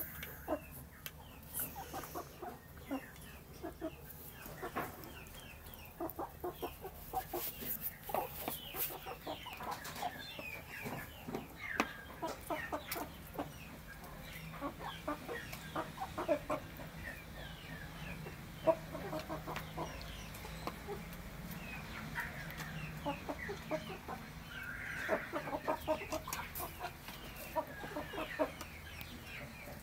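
A rooster and two hens clucking softly as they feed on rice, with a busy patter of quick beak taps as they peck from the dish.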